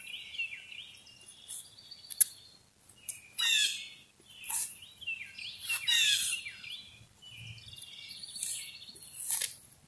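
Songbirds singing, with repeated chirps and several quick falling phrases. There is one sharp click about two seconds in.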